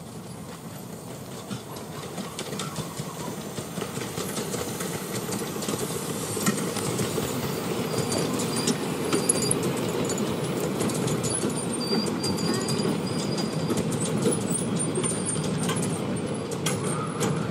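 10¼-inch gauge miniature railway train passing close by: the rumble of its carriages with wheels clicking over the rail joints, growing louder over the first few seconds and then steady as the carriages go past.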